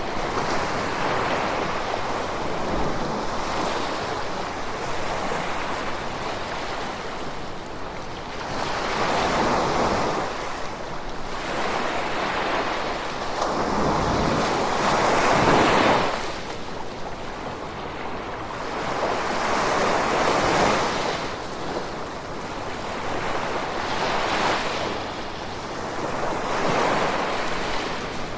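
Ocean waves washing onto a shore. Each wave swells and falls back every few seconds, and the biggest comes just past the middle.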